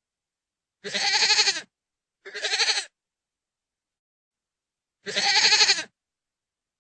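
Goat bleating: three trembling bleats, each under a second long. The first two come close together about a second in and the third comes near the end.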